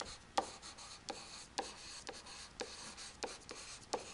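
Stylus writing on a tablet screen: faint scratching broken by sharp taps about twice a second as the tip meets the surface for each letter.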